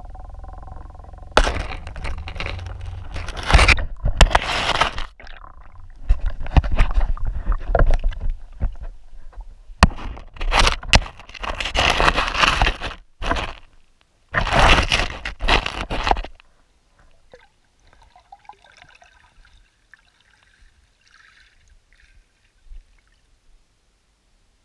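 Scraping, knocking and gurgling water picked up underwater by a GoPro Hero 4 in its waterproof housing, in loud irregular bursts for about fifteen seconds. The bursts stop suddenly, leaving only faint scattered ticks.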